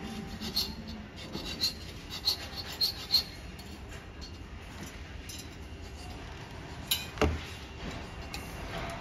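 Small hand file scraping against the stainless-steel wire of a grilling basket in a series of short strokes over the first few seconds, then a single sharper knock about seven seconds in as the metal basket is handled.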